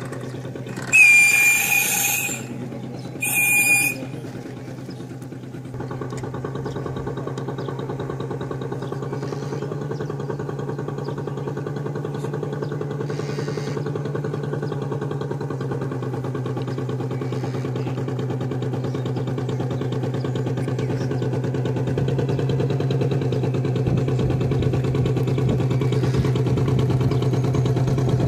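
Steady hum of a radio-controlled model boat's engine, growing louder toward the end as the boat comes close. Two short whistle blasts sound near the start, the first about a second long and the second shorter.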